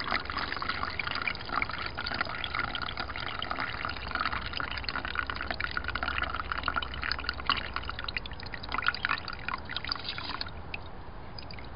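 Green acid solution poured in a thin stream from a glass jar into a paper coffee filter in a plastic cup, trickling and splashing steadily; the pour stops about a second before the end.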